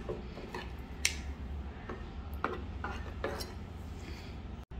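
Stainless steel ladle stirring a thick coconut-milk vegetable stew in a clay pot, clinking and scraping against the pot several times, the sharpest knock about a second in.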